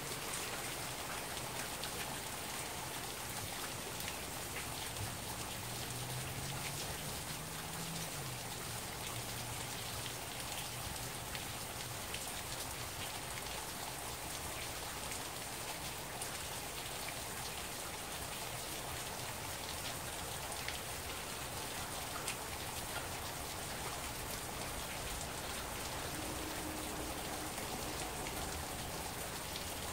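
Heavy rain falling steadily, with many small ticks of drops striking close to the microphone.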